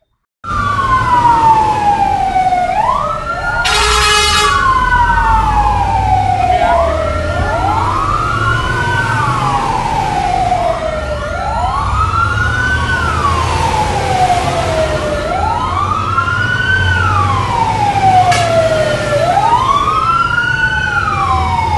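Fire engine siren wailing, its pitch rising quickly and falling slowly about every four seconds, with a second siren overlapping at first. A short horn blast comes about four seconds in, over a truck engine's low rumble.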